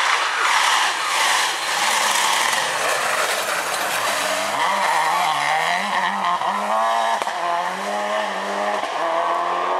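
Subaru Impreza WRC rally car's turbocharged flat-four engine at full throttle, driving past. A rushing noise comes first, then the engine note rises and drops as it changes gear.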